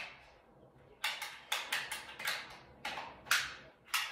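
A string of about ten sharp plastic clicks and clacks from a toy Nerf blaster being handled, starting about a second in, irregularly spaced, each with a short echo.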